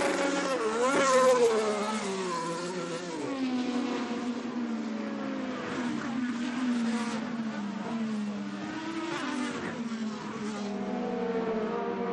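IndyCar race car engine running hard, its note wavering and rising about a second in, then falling slowly and steadily in pitch over the following seconds.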